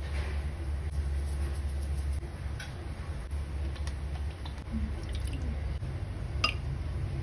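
Thick sauces poured and dripping into a glass bowl of mayonnaise, with a few light clicks and one sharper tap near the end, over a steady low hum.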